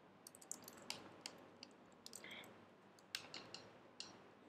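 Faint, irregular clicks of a computer keyboard and mouse as a command is selected, copied and entered in a terminal, with a small cluster of clicks about three seconds in.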